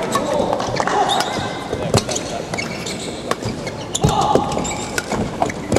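Badminton hall ambience between points: irregular sharp smacks of rackets and shuttlecocks and shoes on the court floor, with voices in the background.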